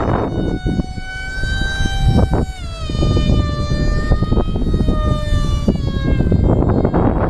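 The CTH Scythe FPV aircraft screaming in flight: a high, pitched whine that drops in pitch about two and a half seconds in and again near the end, over rough wind buffeting on the onboard microphone.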